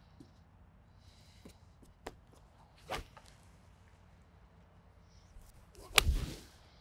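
Golf iron striking a ball off turf: one crisp, sharp crack with a short brushing swish after it, about six seconds in. A fainter click comes about three seconds in, with a few light ticks scattered through.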